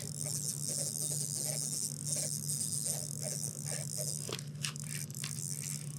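Faint, irregular clicks and scrapes of fishing tackle handled while a hooked fish is reeled up to a kayak, over a steady low hum and hiss.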